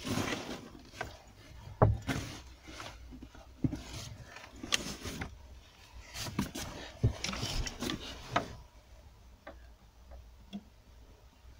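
Irregular knocks, clicks and short rustles inside a car's cabin, thinning out to a few faint ticks about two-thirds of the way in.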